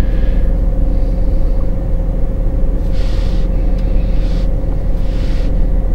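Chevy Colorado pickup's engine idling, heard from inside the cab as a steady low rumble with a constant hum. Three short hisses come in over it near the middle and toward the end.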